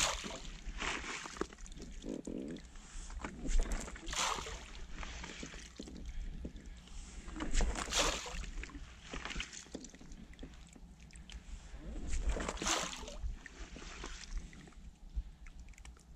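Handfuls of particle bait (corn, hemp, groats and maize) thrown from an inflatable boat, splashing onto the lake surface about four times, a few seconds apart.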